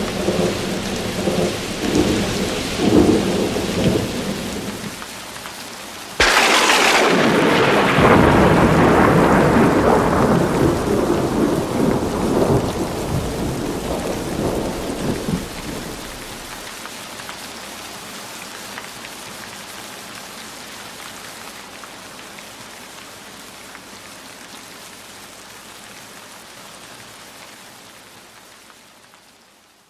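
Thunderstorm: rain falling steadily under a low rumble of thunder. A sharp thunderclap breaks about six seconds in and rolls on for about ten seconds before dying away, leaving the rain alone, which fades out near the end.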